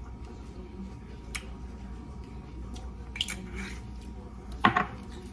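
Kitchen handling noises while a salad is being seasoned and mixed: a few soft clicks and taps, and a sharper knock about four and a half seconds in, over a low steady hum.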